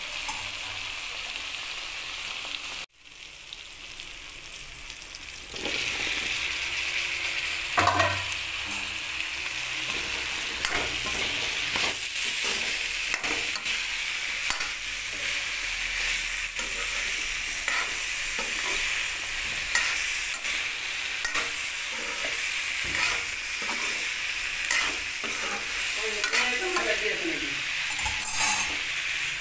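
Young jackfruit pieces with onion, tomato and green chilli sizzling in oil in a wok, while a metal spatula stirs and scrapes against the pan. The sizzle drops away briefly about three seconds in, then returns louder.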